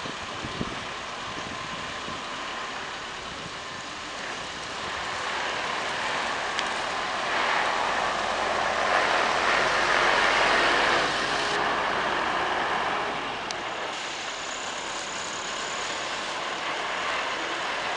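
Highway coach's diesel engine pulling away and driving past. It grows louder as the coach passes, loudest about eight to eleven seconds in, then fades as it drives off.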